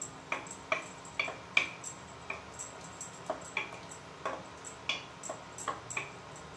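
Wooden spatula stirring chickpeas in a pan, tapping against the pan's sides in short, irregular knocks about two or three a second.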